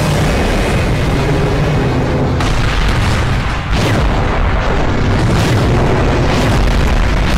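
Soundtrack of an animated battle: explosions and booms over a deep, continuous rumble, with music underneath. The sound dips briefly about three and a half seconds in, then the blasts resume.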